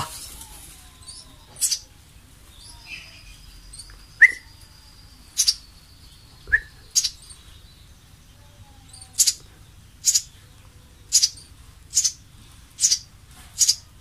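Eurasian tree sparrow fledglings giving short, sharp, high begging chirps as they are hand-fed. The chirps come a few seconds apart at first, then about one a second through the second half.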